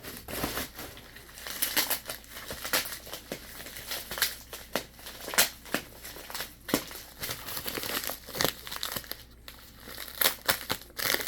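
Packing material being crinkled and rustled by hand as a package is unwrapped, with irregular sharp crackles throughout.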